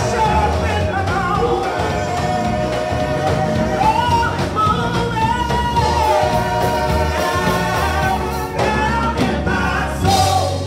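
Gospel song sung by a church praise team of several voices over instrumental accompaniment with a steady bass line.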